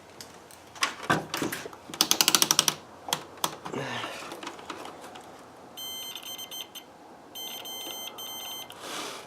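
Scattered handling clicks and a quick run of about a dozen sharp clicks, then an electronic continuity beeper, presumably a multimeter's, sounding in two stretches of about a second each with brief breaks, as the motor's commutator is tested: the beeping leads to the suspicion that the commutator is shorted out.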